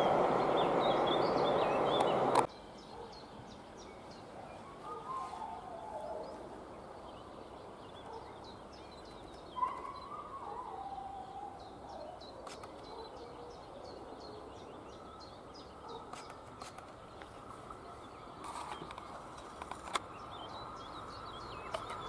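Train rolling noise on the line for about two seconds, cut off abruptly. Then birds singing over quiet countryside, with a distant train faintly approaching along the track near the end.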